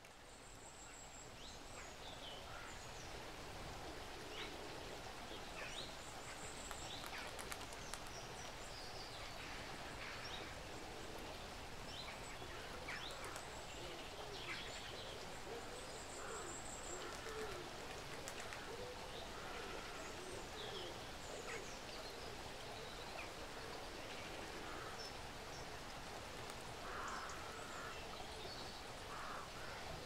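A squirrel chewing, faint scattered crunching clicks, against a steady outdoor hiss with birds chirping on and off throughout.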